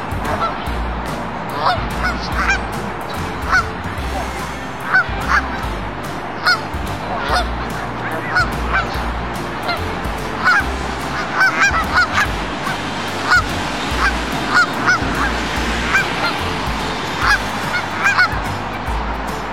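Geese honking over and over, many short calls, often several a second, over a steady background rumble.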